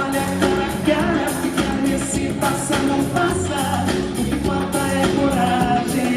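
Live band music with a voice singing a melody over a steady drum beat.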